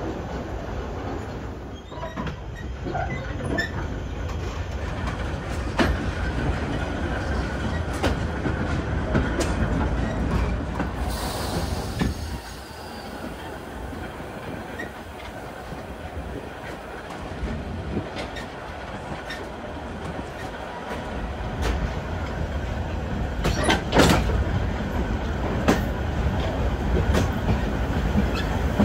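Steam train under way: a steady rumble from the running train, with repeated clacks of the wheels over the rail joints. A brief hiss comes about eleven seconds in.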